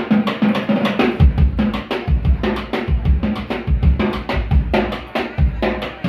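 A drum kit played live as a solo: fast strokes on snare and toms, with the bass drum joining in with steady kicks about a second in.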